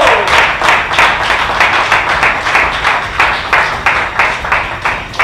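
Hands clapping in a steady rhythm, about three claps a second.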